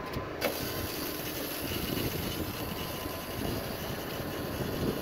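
Tractor engine running steadily, with a sudden rise in hiss less than half a second in.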